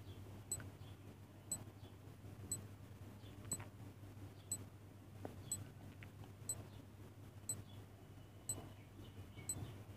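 Countdown timer sound effect ticking about once a second with short, faint, high-pitched ticks, a couple coming closer together near the end. A faint steady low hum runs underneath.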